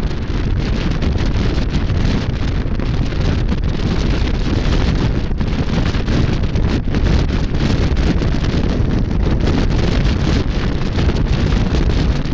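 Steady wind buffeting the microphone of a camera on a motorcycle riding at road speed, a heavy low rumble, with the motorcycle's engine and road noise beneath it.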